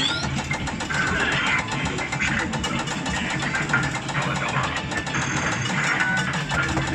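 Amusement-arcade din: electronic machine jingles and music over a steady machine hum, with rapid ticking while a prize-wheel machine's wheel spins.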